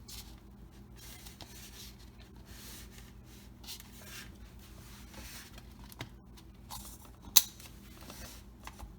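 Bakeware being handled on a kitchen counter: short scratchy rubbing and scraping sounds, several light clicks and one sharp click about seven seconds in, over a steady low hum.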